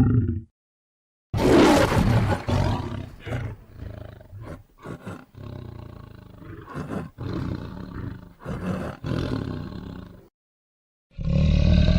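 Lion roaring: one loud roar about a second in, followed by a string of shorter grunts that grow weaker. Near the end a new loud roar begins after a short silence.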